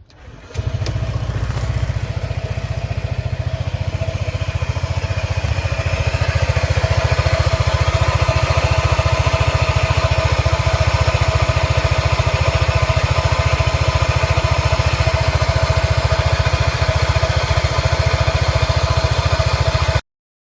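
Honda PCX150 (KF30) scooter's single-cylinder engine starting about half a second in and idling with a fast, even pulse, a steady tone riding above it, and getting a little louder a few seconds later. The drivetrain noise is what the owner traces to the drive pulley bearings. It cuts off suddenly near the end.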